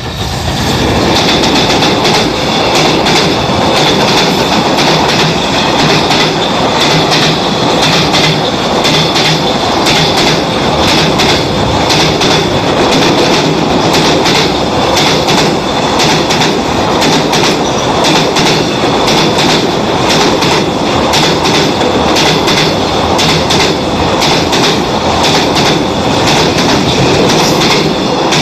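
Hiroden tram rolling past close by, its wheels clattering rhythmically over the rail joints, loud throughout, with a faint squeal from the wheels.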